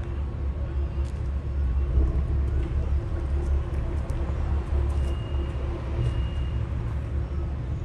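Low, steady engine rumble with a faint hum running through it. A faint high tone sounds twice, around five and six seconds in.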